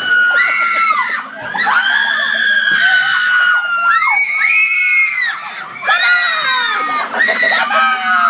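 Several girls screaming together in fright at a scare actor's lunge: long, overlapping high-pitched shrieks that break off briefly about a second in and again near six seconds.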